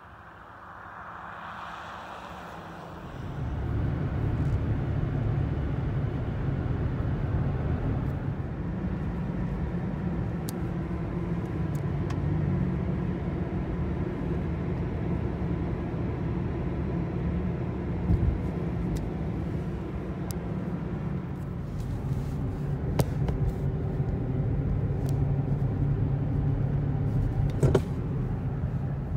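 Steady road and engine rumble inside the cabin of a moving car, starting about three seconds in after a quieter opening. A few faint clicks come through near the end.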